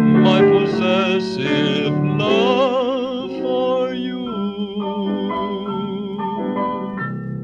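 A singer with a wide, operatic vibrato sings the song's closing phrase over instrumental accompaniment, with a rising swoop about two and a half seconds in. In the second half the sound settles into steadier held chords. The whole plays back as a restored transfer of an old Audiodisc lacquer disc recording.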